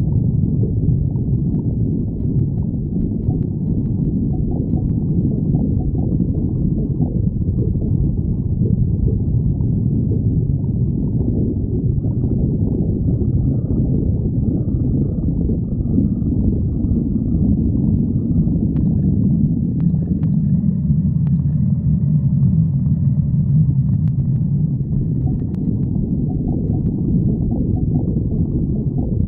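Stomach growling: a loud, continuous low rumble and gurgle whose pitch shifts up and down, with a few faint clicks in the second half.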